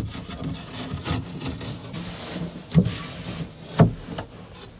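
Rummaging in an under-bed storage compartment to get out a camp stove: rubbing and rustling broken by knocks, the loudest two about three and four seconds in.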